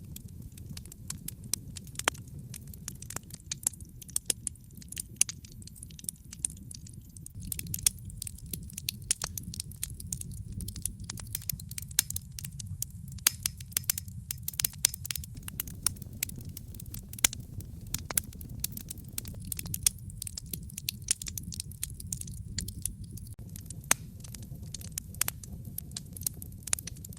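Wood fire crackling in a fireplace, with frequent irregular sharp pops and snaps over a steady low rumble of the flames.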